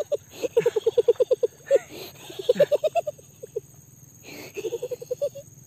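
An animal calling in runs of quick, evenly spaced pulsed notes, about ten a second, each run lasting around a second, four times over.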